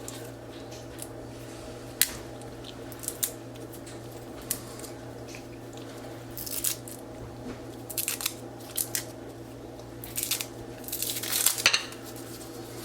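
Capuchin monkey smashing and squashing a ripe tomatillo on a plate: scattered wet squishes, taps and clicks that come thicker toward the end, over a steady low hum.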